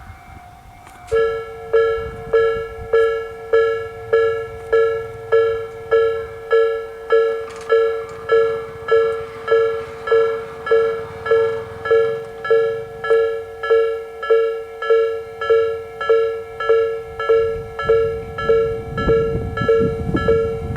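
Electronic alarm of a Japanese railway level crossing starting up about a second in: the slow-tempo Nikko Line type chime, one ringing tone repeating evenly a little under twice a second. Near the end the low rumble of an approaching train rises beneath it.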